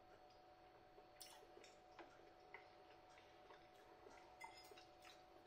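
Near silence: room tone with a faint steady hum and a scattering of faint, irregular clicks from eating a forkful of spaghetti bolognese.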